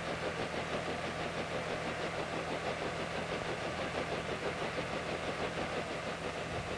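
Small helicopter's engine and rotor running steadily, with a regular pulsing beat.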